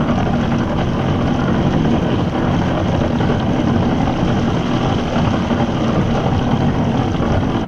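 Mercury outboard motor running steadily at speed, driving a small boat along.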